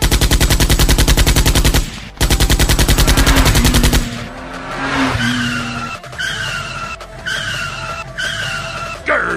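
Sound effects of rapid machine-gun fire in two loud bursts of about two seconds each, followed by a car's skidding tyres and short squeals repeating about once a second.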